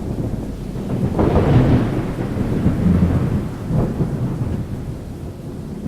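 Thunder rumbling with rain, a fresh peal breaking in about a second in, then the rumble slowly dying away.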